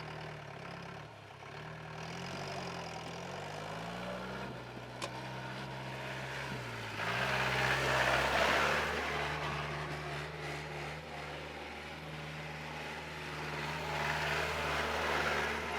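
Mahindra CL 550 jeep engine running, its pitch rising and falling over the first few seconds and then holding steadier, with louder rushes of noise about seven seconds in and again near the end.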